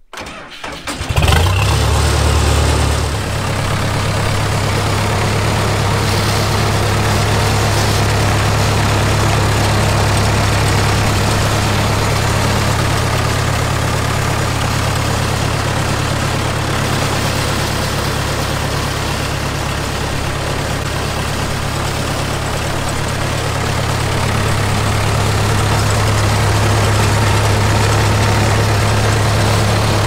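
An engine starts about a second in, runs faster for about two seconds, then settles into a steady idle.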